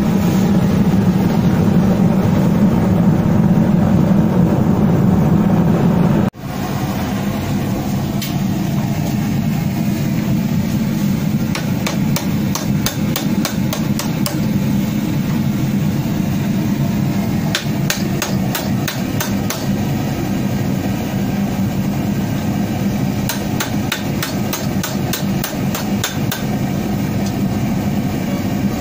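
A steady rushing noise from the blade-heating forge, then, after a cut, a hand hammer striking a red-hot blade blank from an old leaf spring on a bench vise's anvil in runs of quick blows. The blows are straightening the bent spring steel. The steady noise continues underneath.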